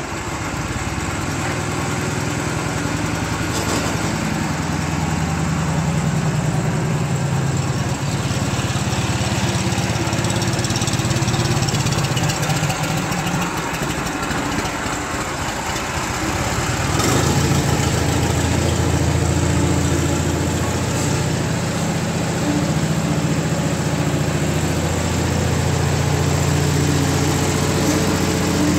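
Bolens HT-20 garden tractor's engine running steadily just after its first cold start following long storage, while the tractor is driven around. It grows louder a little past halfway through.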